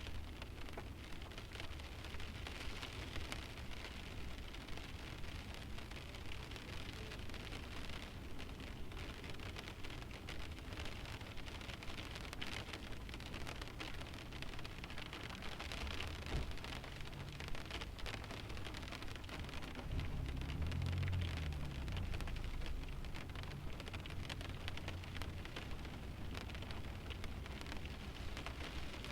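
Light rain pattering on the windshield of a parked car, a steady hiss full of small drop ticks with no engine running. A low rumble swells briefly about two-thirds of the way through.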